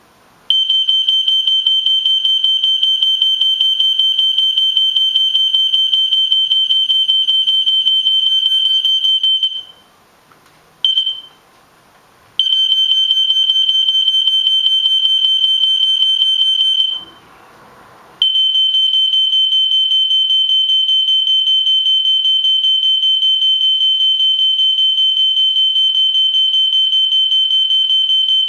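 Loud, high-pitched electronic alarm tone, like a smoke alarm's piezo siren, blaring steadily. It cuts out about nine seconds in, gives a short blip, resumes for several seconds, stops again briefly, then sounds on through the end.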